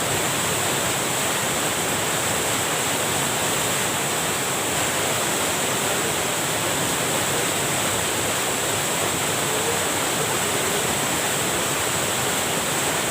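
Water rushing steadily over a small cascade (a grojokan), running high after heavy rain: a loud, unbroken rushing noise.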